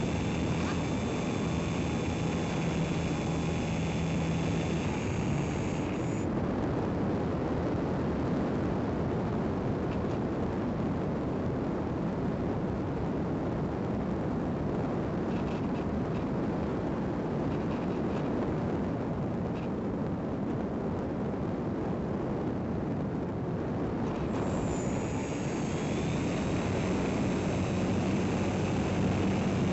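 Onboard sound of an EasyGlider electric motor glider: the motor's steady whine cuts off about six seconds in, leaving only the rush of air while the plane glides. Near the end the motor starts again, its whine rising as it spools up.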